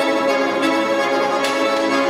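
Bayan, the Russian chromatic button accordion, playing held chords with several notes sounding together.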